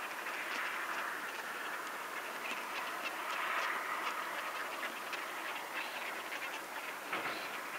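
Whooper swans calling: a steady chorus of honking calls from a flock on the water.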